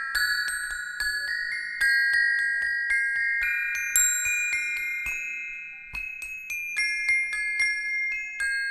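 A row of metal bars struck in quick succession with two thin metal beaters, ringing a bright melody of repeated notes: a church-bell peal tune played on a practice keyboard of bars standing in for the bells. The notes thin out and ring down about five seconds in, then the tune picks up again.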